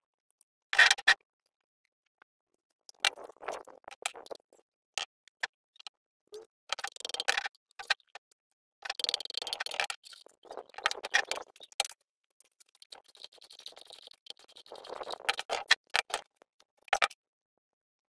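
Hand tools and loose metal parts clicking, tapping and scraping on a steel workbench while a portable generator is worked on by hand. The sounds come in irregular bursts, with a sharp clack about a second in and longer scraping and rattling stretches near the middle and toward the end.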